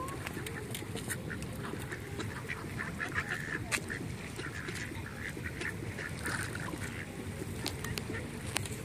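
A flock of ducks quacking and calling repeatedly while crowding around scattered feed, over a steady low background rumble with a few sharp clicks.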